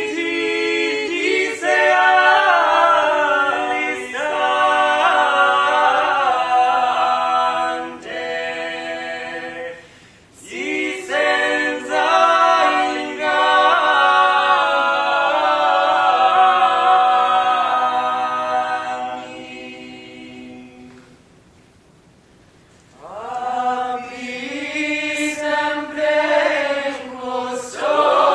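Mixed male and female voices singing a cappella in close parts, in long held phrases. The singing breaks off for a brief pause about two-thirds of the way through, then starts again.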